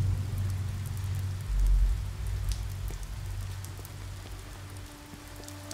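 A low steady rumble that swells briefly about one and a half seconds in and then slowly fades, with a faint crackling hiss over it.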